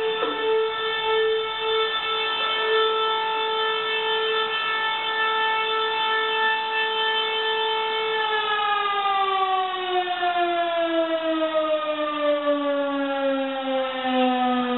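Fire station alarm siren sounding one steady, loud wailing tone. About eight seconds in, its pitch begins to fall slowly as the siren winds down.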